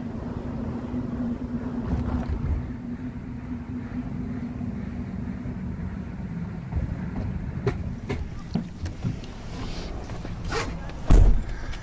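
Van driving, heard from inside the cabin as a steady low engine and road hum. Several sharp clicks come in the later part and one loud thump near the end.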